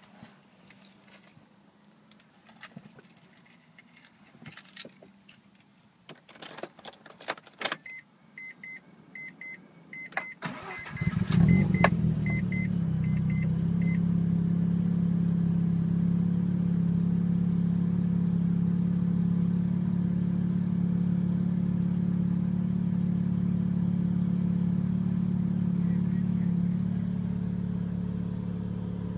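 Keys jangling and clicking, then a warning chime beeping steadily, then the 1994 Mazda RX-7 FD's twin-turbo 13B rotary engine cranks and catches about ten seconds in, flares briefly and settles into a steady fast cold-start idle.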